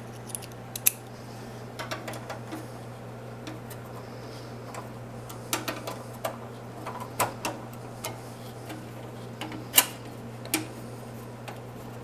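Irregular sharp clicks and light knocks of hands handling parts inside an open desktop PC case, the sharpest clicks about a second in and just under ten seconds in.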